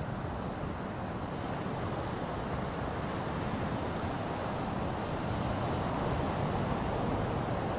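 Ocean surf washing ashore: a steady rush of waves that swells a little about five seconds in.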